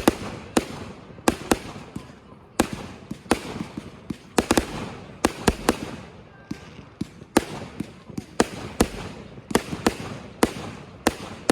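Fireworks going off: a steady run of sharp bangs at irregular intervals, several bunched close together, each trailing off in a short echo.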